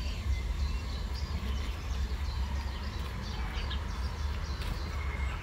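Outdoor ambience: a steady low rumble, with scattered faint bird chirps.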